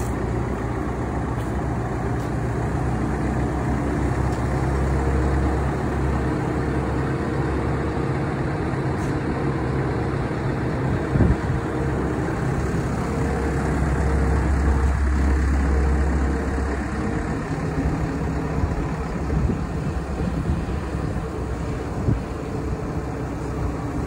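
Merlo Roto 50.30S Plus rotating telehandler running steadily while its boom is raised by remote control. The machine runs harder and louder from about five seconds in until about seventeen seconds in, under hydraulic load. A single knock comes about eleven seconds in.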